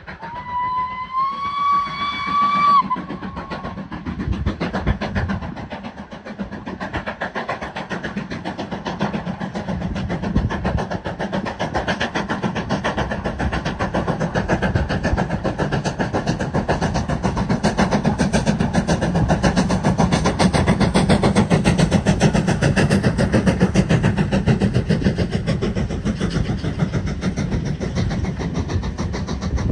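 Steam locomotive whistle blown once for about two seconds, rising slightly in pitch, followed by the steady, fast-pulsing sound of the train running, which builds to its loudest about two-thirds of the way through.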